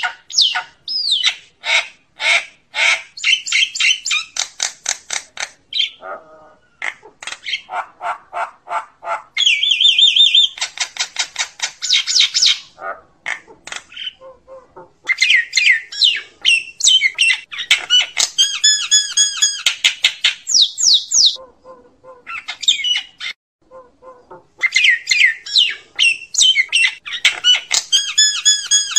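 Common myna (Acridotheres tristis) calling the flock: runs of fast repeated notes, several a second, broken by short pauses.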